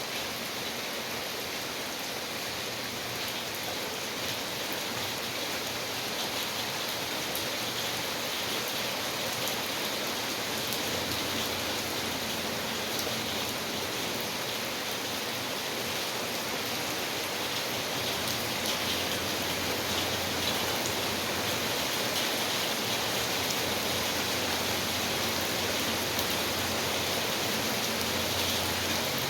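Steady rain falling, an even hiss of many drops with faint individual patters, unchanging in strength.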